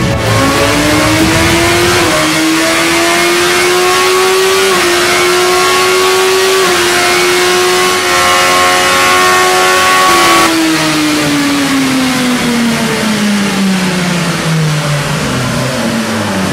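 BMW motorcycle engine driving the roller of a MAHA dynamometer in a dyno run. The revs climb for about ten seconds with three brief dips, then fall away steadily as it winds down.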